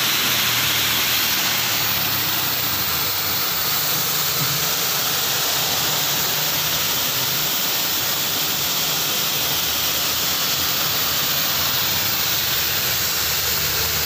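High-pressure water jet from a car-washing machine's spray gun, hissing steadily, with the low hum of its three-piston pump and motor running underneath.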